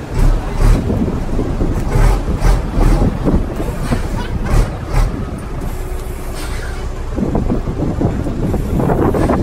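Scania truck's diesel engine running as the truck creeps forward at walking pace. A series of loud dull thumps on the microphone in the first half.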